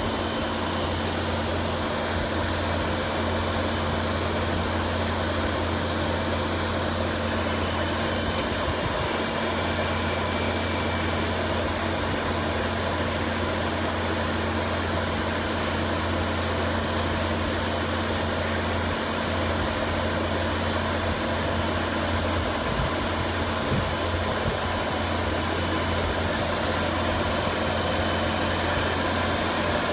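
Bobcat T590 compact track loader's diesel engine running steadily with a constant low hum while it drives a hydraulic auger boring a post hole into the dirt.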